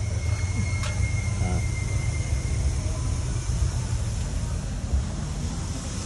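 Low, steady exhaust rumble of the 1977 Chevrolet Caprice Classic's engine idling, heard at its custom gear-and-pulley exhaust tip. A short sharp click sounds about a second in.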